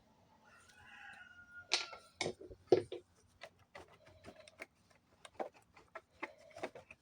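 A rooster crows once in the background, a drawn-out call lasting about a second and a half. Then a run of sharp clicks and taps as small parts of a Stihl TS420 concrete saw's carburetor are handled and fitted on the bench.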